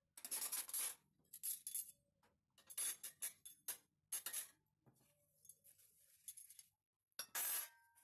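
Tableware being set on a glass-topped table: a run of short clinks and scrapes from ceramic dishes and metal cutlery, one of them near the end ringing on briefly.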